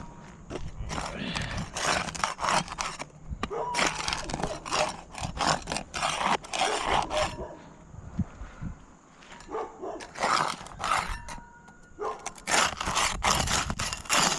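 A putty knife and roof snake scraping and prying under asphalt roof shingles, breaking their sealant strips to free them. The noise comes in repeated rasping strokes, in two runs with a short pause between.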